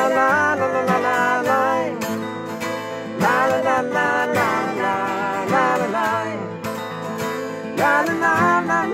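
Acoustic guitar strumming with a fretted mountain dulcimer playing along, and a voice singing a wordless "la la la" chorus over them in several phrases.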